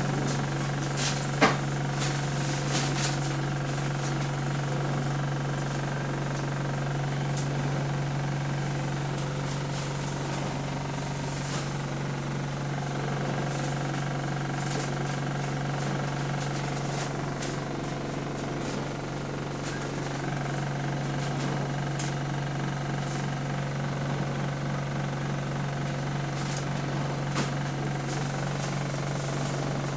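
Diesel engine of a single-deck bus, a steady low drone heard from inside the passenger saloon, easing a little about two-thirds of the way through and then picking up again. A sharp knock sounds about a second and a half in.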